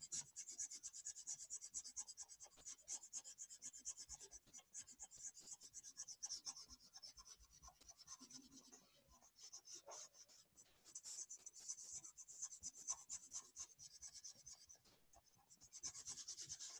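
Faint, fast scribbling of a colouring tip rubbing back and forth on paper as an area is filled in, with short pauses about halfway through and near the end.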